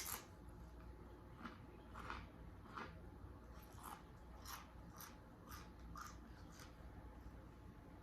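A person chewing crunchy food with soft crunches about twice a second, stopping near the end.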